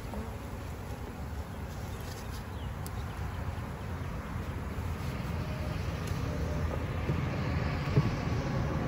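Honeybees buzzing around an open hive over a steady low outdoor rumble, with a single knock about eight seconds in as the hive's outer cover is set down on the wooden box.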